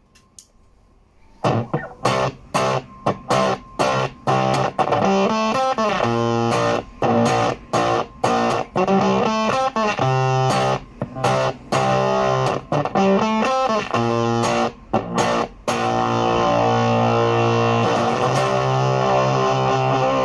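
Electric guitar played through a JHS Colour Box V2 preamp pedal: repeated short, choppy chord stabs, then one chord held and left ringing near the end.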